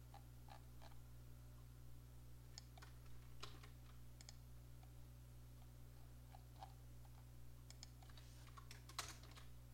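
Faint, scattered clicks of a computer mouse and keyboard being used, a dozen or so spread irregularly, with one louder click about nine seconds in. A low steady hum runs underneath.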